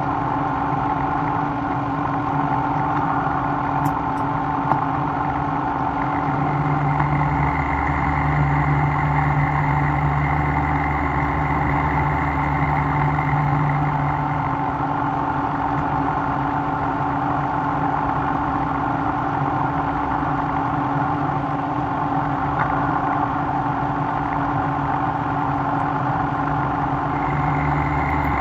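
A machine running steadily, a constant hum made of several steady tones. A deeper low hum joins in for several seconds in the first half and again near the end, as the machine's load or speed changes.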